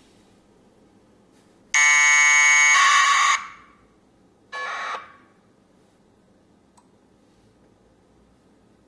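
APRS packet sent as AFSK modem tones (Bell 202, 1200 baud) by the APRSdroid app: a loud tone burst of about a second and a half, steady at first and then warbling, followed about a second later by a shorter, quieter burst.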